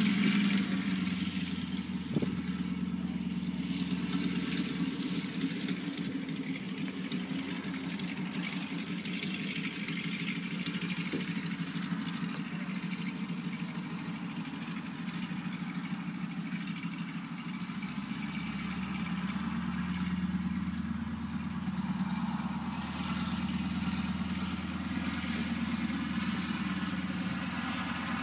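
Nanchang CJ-6A trainer's nine-cylinder radial engine running steadily at low power while taxiing, a steady low drone that eases off in the first few seconds and swells a little again in the second half.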